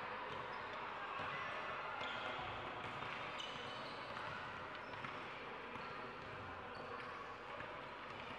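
Basketball game play: a ball bouncing on the court, with short high squeaks scattered through and a steady hum of voices in the hall behind.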